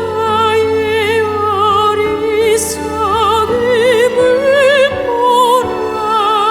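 A female vocalist singing a slow Korean worship song in long, held notes with wide vibrato, over a sustained instrumental accompaniment.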